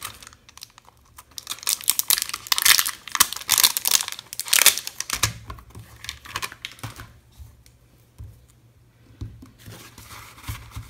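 Clear plastic stamp case and its sheet of clear photopolymer stamps crinkling and crackling as they are handled and a stamp is taken out, loudest in the first half. A few soft knocks follow in the second half.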